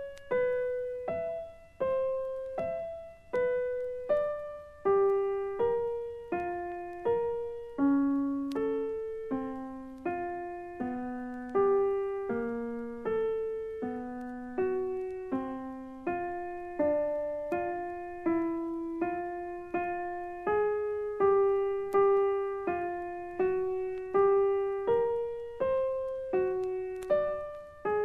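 Solo piano playing a slow line of single notes, about one a second, each struck and left to ring and fade. The line wanders in the middle register, sinking lower in the middle and climbing back near the end.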